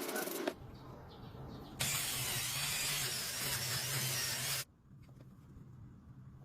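An aerosol spray can spraying paint in one steady hiss for about three seconds, cut off sharply when the nozzle is released. A rubbing, sanding-type sound ends about half a second in.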